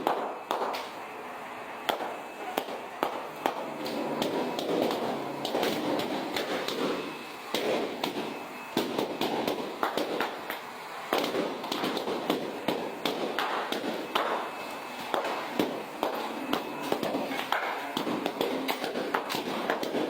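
Latex balloons being popped one after another, sharp cracks of varying loudness several times a second, over background chatter.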